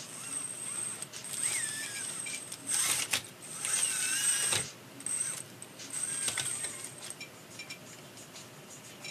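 Small electric drivetrain of a 1/24-scale RC rock crawler whirring in several short runs, its pitch sliding up and down, over a thin high whine that comes and goes. The longest and loudest run comes about three to four and a half seconds in.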